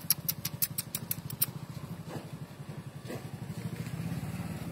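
An engine running at idle, a steady low pulsing hum. A quick run of about nine sharp, high clicks sounds over it in the first second and a half.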